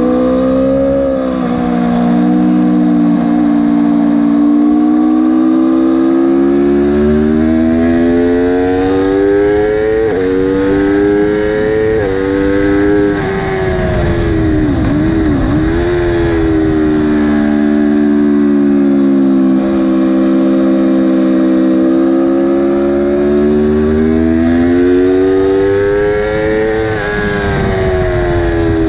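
Aprilia sport bike engine heard from on board at full racing pace. Its pitch climbs hard and drops back sharply at each gear change, about ten and twelve seconds in. It falls away in the middle, then climbs steadily again and drops near the end. Wind rushes over the camera at top speed.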